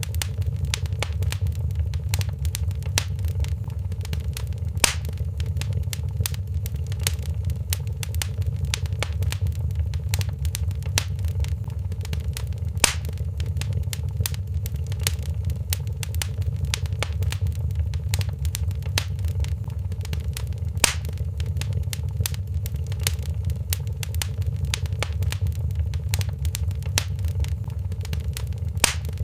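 Wood fire crackling in a fireplace: a steady low rumble of flame with a constant patter of small pops and a few louder, sharp snaps.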